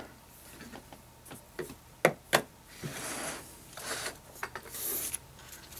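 Coins in clear plastic capsules being handled and set down on a wooden desk: two sharp clicks about two seconds in, with fainter taps and light rustling.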